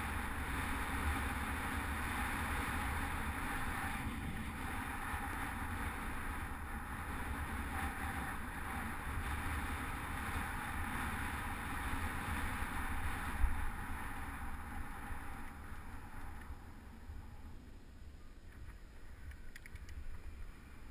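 Wind and road noise from a moving bicycle, picked up by a bike-mounted GoPro HD Hero2: a steady low rumble of wind buffeting the camera under a hiss that dies away about four-fifths through. One short knock comes about two-thirds in.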